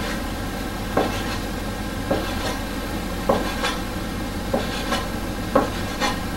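Kitchen knife cutting through a cylinder of dough and knocking on a wooden cutting board: about nine dull knocks, irregularly half a second to a second apart, over a steady low hum.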